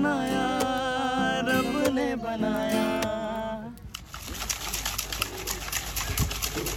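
A man singing to a strummed acoustic guitar, holding wavering notes. About four seconds in the music stops abruptly, and a noisy clatter of many short clicks over a low rumble follows.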